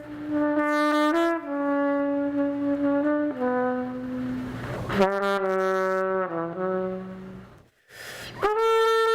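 A trumpet playing a slow line of long held notes, with a short break for breath about eight seconds in.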